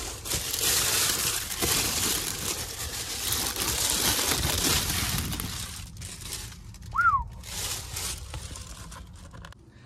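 Plastic shopping bag crinkling and rustling as it is handled, easing off about six seconds in. A single short, falling squeak about seven seconds in.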